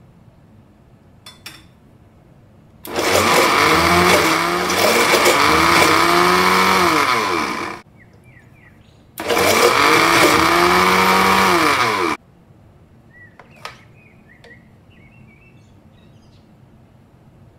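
Countertop blender running in two bursts, about five seconds and then three seconds, churning frozen mango pieces and yogurt into a thick frozen-yogurt mixture. The motor's pitch dips and rises as it labours through the stiff frozen mix.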